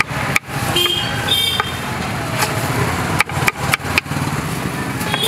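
Kitchen knife chopping fruit on a cutting board: a few sharp knocks, then a quick run of about five chops around three seconds in, over steady street traffic noise.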